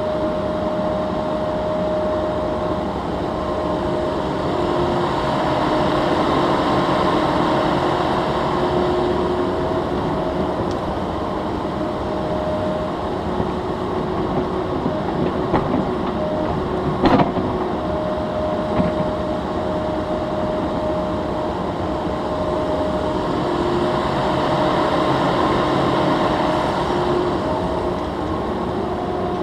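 Cat 308E2 mini excavator digging: the diesel engine runs steadily under load and the hydraulics whine, the pitch shifting as the arm works. One sharp metallic clank comes a little past halfway, with a few lighter clicks around it.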